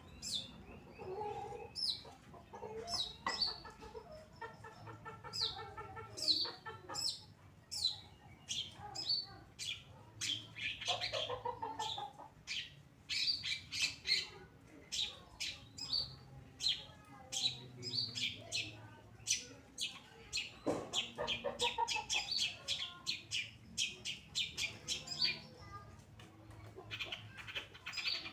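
Long-tailed shrike (cendet) singing in a rapid, continuous stream of sharp high down-slurred chirps, broken now and then by harsher, lower rasping phrases.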